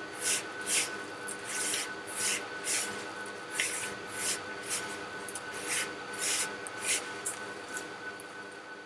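Hand kneading crumbly, damp wheat-flour and mashed-potato dough in a plastic bowl: a soft rustling squish with each squeeze, at an irregular pace of about two a second.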